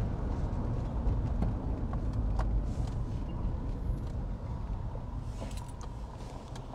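Steady low rumble of a car driving, heard from inside it: engine and tyre noise, easing off slightly toward the end, with a few faint clicks.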